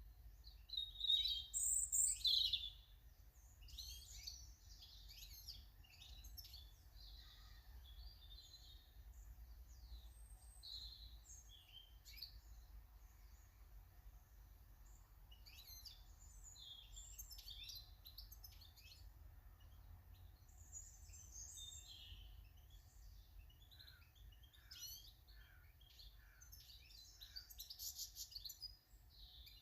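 Small garden birds chirping and singing in many short phrases, with a louder burst of calls about one to two seconds in and another near the end, over a faint low steady rumble.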